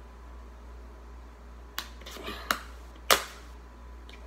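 Scooter grips' packaging being handled and opened by hand: a handful of sharp crackles and clicks in the second half, the loudest a little past three seconds in.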